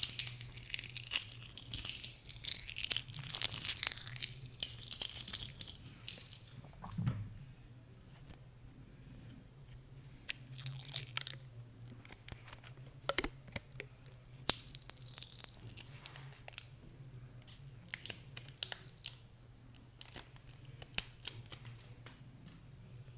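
Plastic-like paper wrapping being torn and crinkled off a pencil by hand, in irregular crackling bursts with small clicks. The bursts are loudest a few seconds in and again past the middle, over a faint steady low hum.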